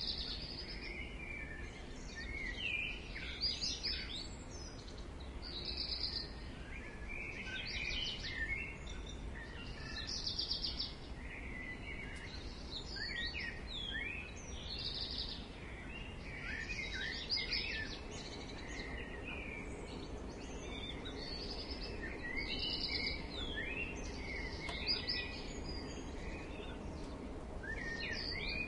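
Dawn chorus in a garden: several birds singing and chirping over one another without pause, with repeated trills and short whistled phrases, over a steady low background noise.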